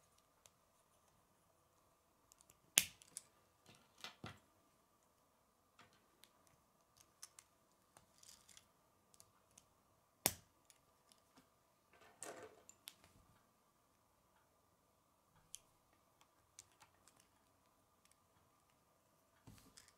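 K'nex plastic rods, connectors and gears clicking and snapping together as they are fitted by hand. The clicks come scattered and sharp, the loudest about three seconds in and another about halfway through, with a brief rattle of parts just after it.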